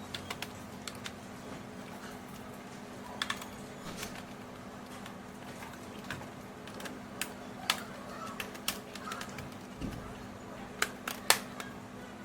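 Irregular light clicks and taps of small plastic parts being handled during a motherboard replacement, with a few sharper clicks near the end, over a steady low hum.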